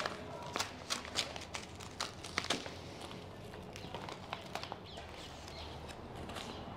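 Paper envelope being torn open by hand: a run of sharp crackles and rips, thick in the first three seconds and then thinning out to occasional rustles.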